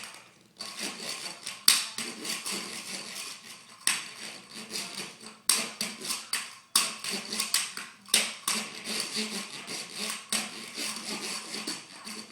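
Irregular scraping, rattling and clicking of hard objects being handled, with several sharper knocks standing out.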